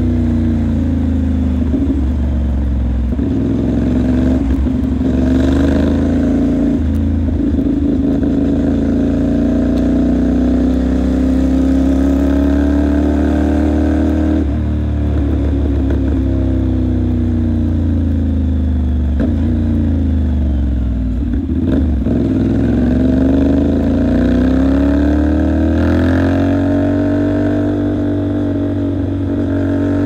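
CFMOTO 450SR's parallel-twin engine under way, the revs climbing and dropping several times as the bike accelerates and slows, with a sudden change in engine note about halfway through.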